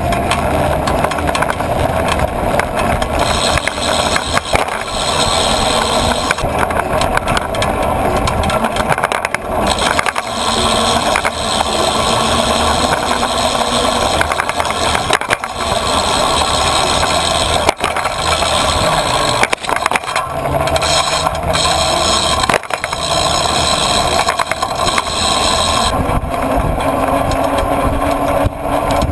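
Bicycle riding over pavement: a steady rolling rumble with frequent rattles and knocks from the bike and its camera mount over bumps, with road traffic alongside.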